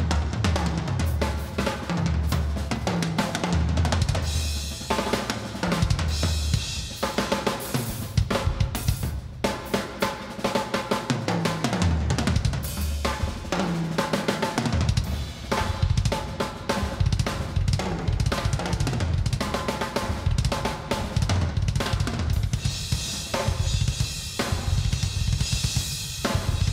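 Acoustic drum kit played hard and fast: rapid strokes on snare, toms and bass drum with cymbals, including fills that step down across the toms. Near the end the cymbals crash and ring over the drums.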